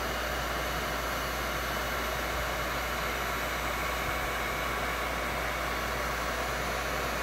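Handheld electric heat gun blowing steadily on its high setting, a constant rush of hot air from its fan.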